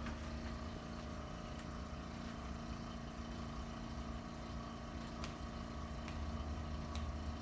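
A steady, low mechanical hum, holding a few constant tones, with a few faint clicks.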